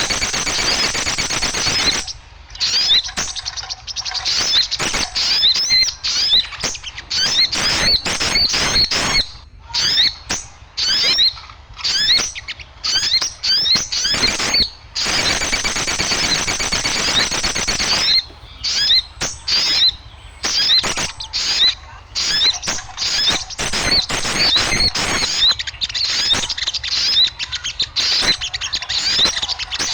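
A noisy chorus of small birds chirping rapidly, many sharp high notes tumbling over one another over a rough hiss, broken by a few short pauses. It is a small-bird lure call, played to draw wild birds in.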